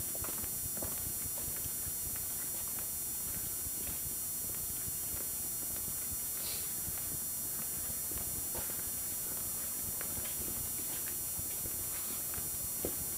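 Scattered, irregular footsteps and small knocks on debris-covered floors, over a steady hiss.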